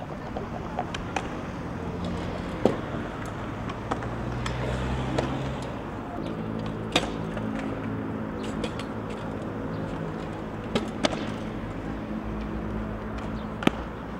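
Several sharp skateboard clacks, spaced a few seconds apart, over a steady low engine hum of traffic.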